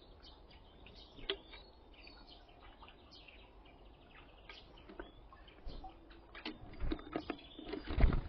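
Small songbirds at a window feeder chirping in short, scattered calls, with sharp taps and knocks of birds pecking at the feeder that grow louder near the end.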